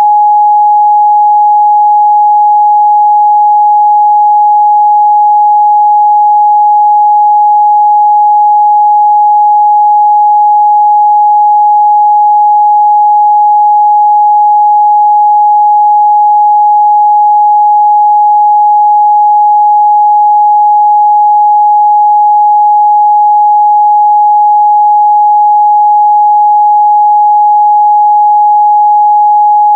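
Steady 836 Hz sine-wave test tone, one unwavering pitch at constant loud level, used to check the midrange response of speakers and headphones.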